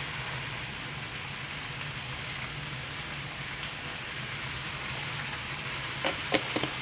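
Cream sauce with cherry tomatoes and spinach simmering in a skillet: a steady sizzling hiss, with a few light clicks near the end.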